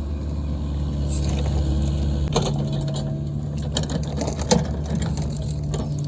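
Excavator diesel engine running steadily. From about two seconds in, scattered knocks and clatter of metal and gear are heard over it.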